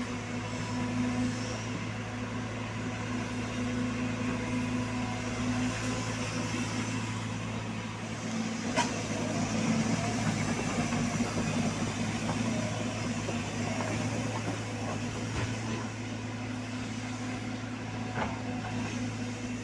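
A heavy diesel engine running steadily at constant speed, with one sharp click about nine seconds in.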